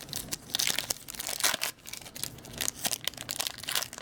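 Wrapper of an Upper Deck hockey card pack crinkling and tearing as the pack is opened by hand, a quick run of crackles.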